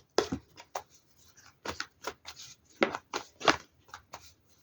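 Tarot cards being handled: a series of short, irregular snaps and slaps of card on card and on the table, the loudest a little under three seconds in and about a second later.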